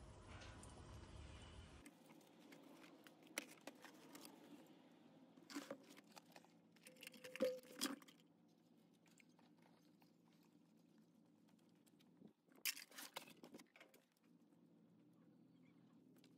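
Near silence. Faint background music fades out about two seconds in, followed by a few brief, faint clicks and knocks.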